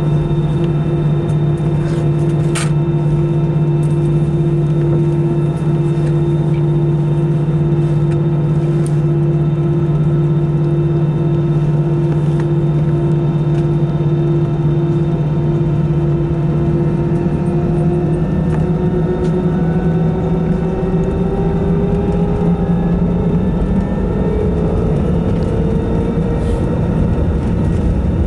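Airbus A320 jet engines heard from inside the cabin: a steady engine hum and drone over a rumble, which starts rising in pitch a little past halfway and keeps climbing as the engines spool up for the takeoff roll.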